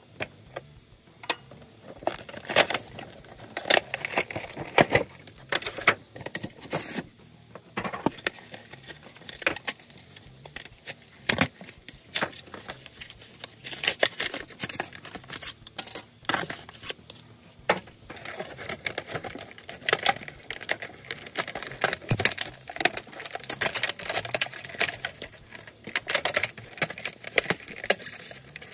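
Action figure packaging being opened by hand: the cardboard window box handled and the clear plastic tray and bags pulled and crinkled, making irregular crackles, clicks and small tearing sounds.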